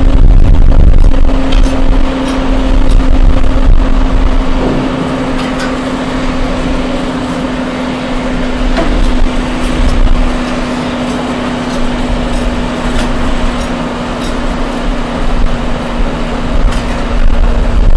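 Concrete batching machinery running: belt conveyors carrying gravel into a hopper, with a steady electric motor hum and scattered clicks of stones.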